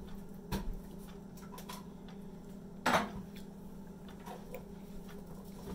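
Kitchenware clinking: a few sharp knocks of utensils against a pan and dishes, the loudest about three seconds in, over a steady low hum.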